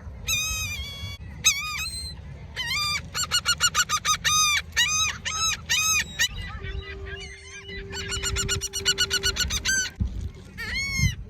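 A group of birds calling loudly and harshly, with fast runs of honking calls, as the birds clamour for food. A steady low tone sounds for a few seconds midway through.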